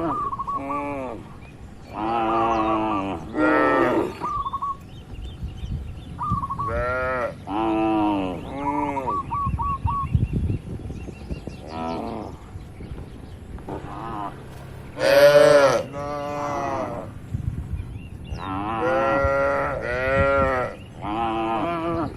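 Several cattle mooing over and over, with a dozen or so long and short moos at different pitches, some overlapping. The loudest moo comes about fifteen seconds in. A few short high chirps are heard between the moos in the first half.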